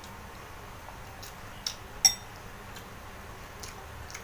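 Close-up eating sounds: scattered soft clicks of chewing and eating. About two seconds in comes one sharp clink with a brief ring, a metal spoon knocking a ceramic soup bowl.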